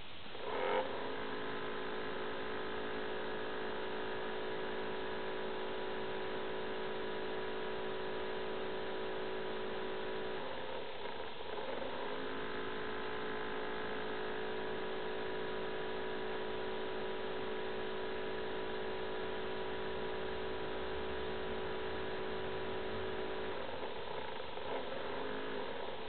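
Acer Aspire 7730G laptop's cooling fan making a steady whine of several tones over a constant rush of air, starting about a second in, dropping out briefly midway and settling back in with a short slide in pitch, then wavering near the end. The owner calls this loud fan noise annoying and not normal.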